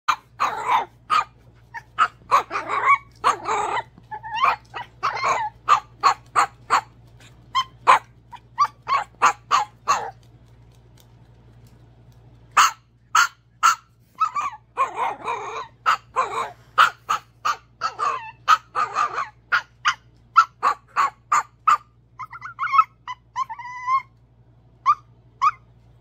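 Tiny Chihuahua yapping while playing: rapid bursts of short, high barks with a few longer, rougher ones, a pause of about two seconds near the middle, then thin whines near the end.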